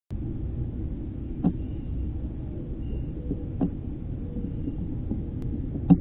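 Eastern gray squirrel knocking against the metal feeding dish of a bird-feeder camera, three sharp knocks about two seconds apart, the last near the end and loudest, over a steady low rumble on the small camera microphone.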